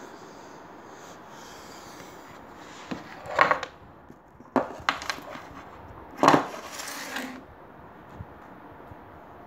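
Handling noise close to the microphone: a few knocks, clicks and rubbing sounds as a hand moves past it on the wooden desk, with two louder bursts, about three and a half and six seconds in.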